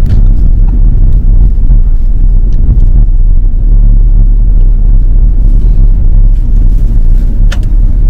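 Steady low rumble of a car's engine and tyres on a wet road, heard from inside the cabin, with one sharp click near the end.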